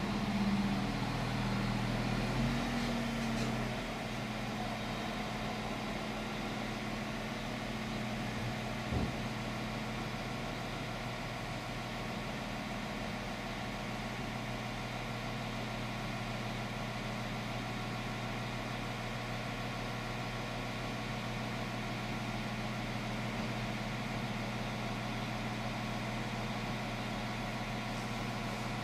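Diesel multiple unit standing at the platform with its engine idling, a steady low hum muffled by the station window glass. The engine note shifts and drops slightly about four seconds in, then holds steady, with a single short knock near nine seconds.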